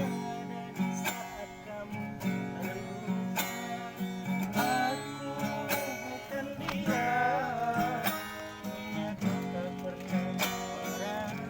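Instrumental music with plucked guitar over a steady beat, a wavering melody line coming in and out.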